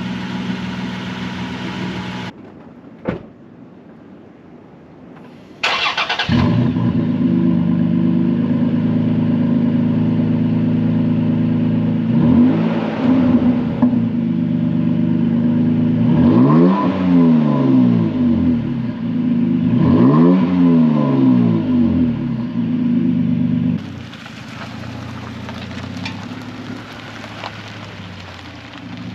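Toyota Tacoma engine running through a newly fitted MBRP stainless steel dual exhaust. It goes quiet about two seconds in and starts up with a short burst about six seconds in. It then runs at a loud idle, is revved up and down in several throttle blips, and settles to a quieter idle near the end.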